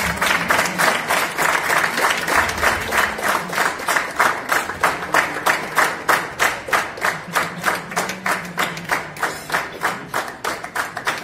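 Audience applauding, the clapping falling into a regular beat in unison of about four claps a second.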